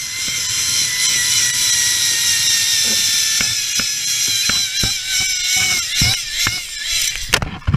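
Zipline trolley pulleys running along the steel cable: a loud, steady high whine with clicking rattles, its pitch slowly falling as the trolley slows, ending in a heavier thump near the end.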